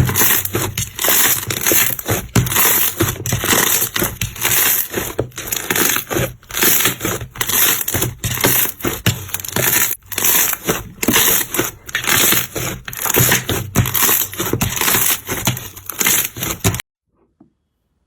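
Slime being squeezed and pressed by hand, with dense crunchy crackling that comes in uneven pulses. It cuts off suddenly near the end.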